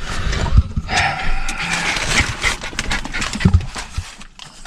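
Excited dog whining and panting, most strongly about a second in, over rustling and scattered knocks of movement.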